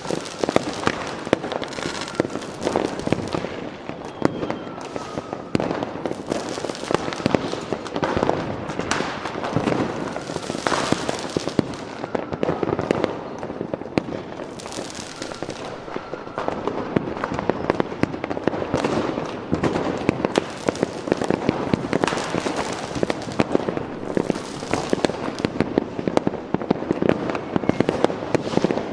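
Fireworks going off without a break: a dense crackle of many small bangs, with louder clusters of bursts every second or two.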